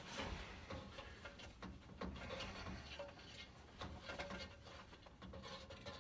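Faint scuffling, rustling and light knocks as a trapped bird is handled and worked out of a fireplace flue.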